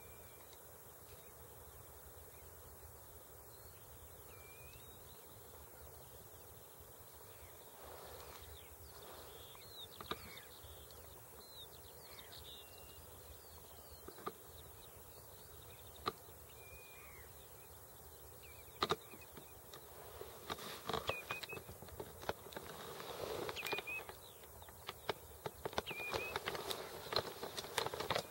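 Faint, short whistled bird calls now and then over a quiet outdoor background. From about two-thirds of the way in, louder clicks and rustling of the camera being handled take over.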